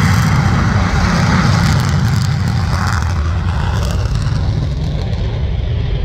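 F-35 fighter jet's engine running loud and steady as the jet moves along the runway, with a deep rumble under a broad hiss. The hiss thins out near the end.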